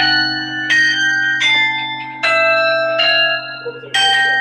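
Carillon bells struck one after another in a slow tune, about six strokes at roughly even spacing. Each bell rings on with several overtones under the next stroke.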